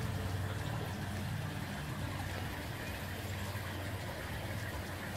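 Steady low hum and hiss of background noise, with no distinct events.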